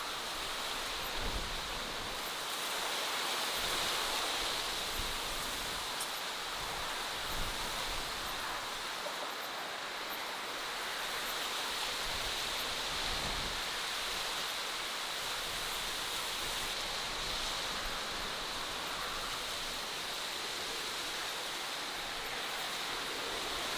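Steady outdoor natural ambience: an even, rushing hiss that holds level throughout, with a steady high-pitched band running through it.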